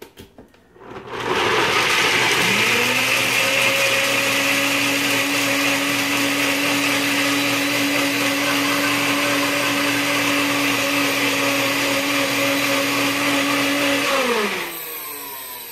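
Nutribullet Prime blender running, blending cashews and water into a sauce. The motor starts about a second in, rises in pitch as it gets up to speed, runs steadily, then cuts out near the end and winds down with a falling tone.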